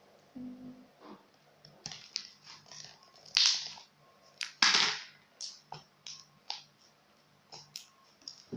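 Slime being squeezed and worked by hand: irregular sticky squishes and clicks, with two louder, longer squelches about three and a half and five seconds in.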